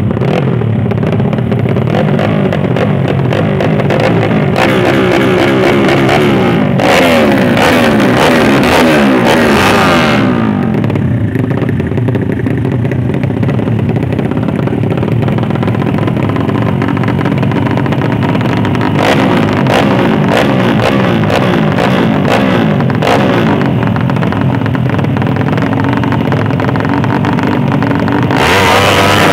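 Several drag-racing motorcycle engines revving over and over, their pitches rising and falling and overlapping one another, a little louder for a few seconds about a quarter of the way in and again near the end.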